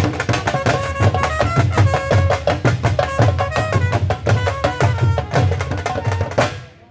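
Dhol drumming in a fast, dense rhythm with a melody instrument playing over it; the music cuts off abruptly near the end.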